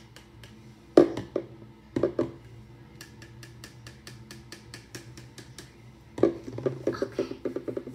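Plastic hair-product bottles handled and knocking, with sharp knocks about one and two seconds in, then set down on a countertop about six seconds in with a quick run of clatters and taps.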